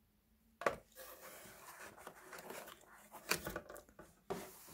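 Handling noise as a plastic colour filter disc is taken out of a cardboard box: a sharp knock about half a second in, then rustling with a few more clicks and knocks.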